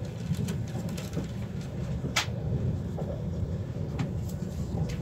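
Ride noise inside a passenger coach of an ICE 4 high-speed train running along the track: a steady low rumble, with a few sharp clicks, the loudest about two seconds in.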